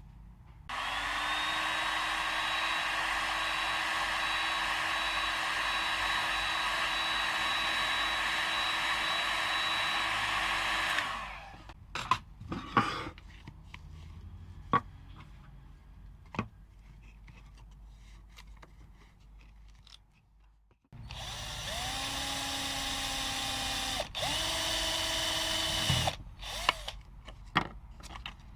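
Homemade PVC-pipe mini saw driven by a 775 DC motor, switched on with a short rising whine as it spins up, then running steadily for about ten seconds before cutting off. A few knocks follow, then it runs again for about five seconds, its pitch shifting partway through.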